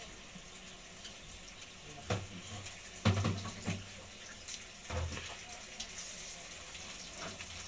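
Water running from a tap, with three heavier splashes about two, three and five seconds in, the one near three seconds the loudest.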